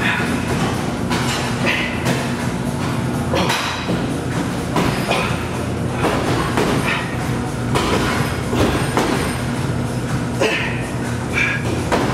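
Music with a heavy, recurring beat.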